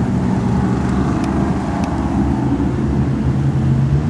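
Engines of a pack of dirt-track race cars running together, a steady loud engine drone.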